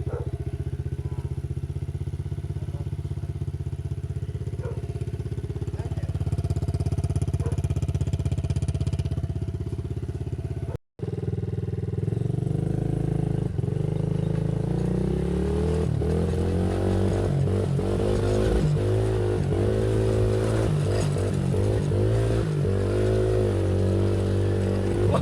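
Loncin 70cc single-cylinder four-stroke ATV engine running with no air filter and no exhaust fitted, first idling steadily. After a brief cut about 11 seconds in, it runs on with the revs rising and falling under changing throttle.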